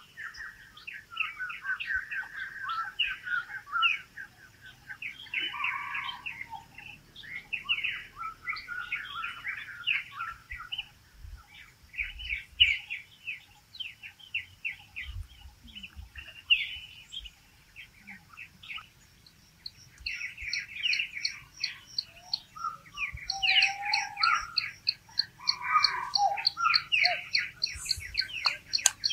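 Small birds chirping and twittering in a busy, overlapping chorus of short calls. About two-thirds of the way in, a fast, high, evenly repeated trill joins them and runs on.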